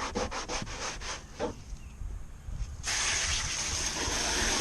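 A brush scrubbing the kayak's plastic hull with quick back-and-forth strokes, several a second, stopping about a second in. About three seconds in, a steady spray of water starts suddenly, rinsing the cleaner off the hull.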